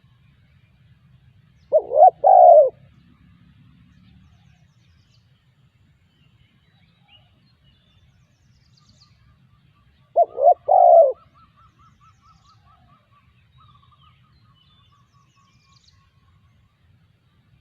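Spotted dove cooing twice, about eight seconds apart: each call lasts about a second, a couple of quick notes running into a longer coo. A faint, rapid trill from another bird runs through the second half.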